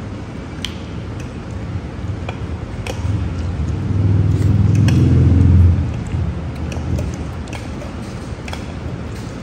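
Busy eatery ambience: a steady low rumble that swells for a couple of seconds about four seconds in and then fades, with scattered sharp clinks of crockery and cutlery.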